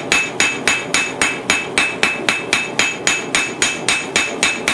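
Hand hammer striking a red-hot steel rod on an anvil in a steady rhythm, about four blows a second, each with a short metallic ring: the end is being flattened and flared out into a spoon bowl.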